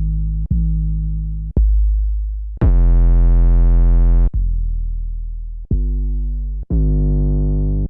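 Trap 808 bass samples played one after another, each a deep sustained boom that starts with a click and fades. One about three seconds in is heavily distorted and bright, and one near the end slides down in pitch.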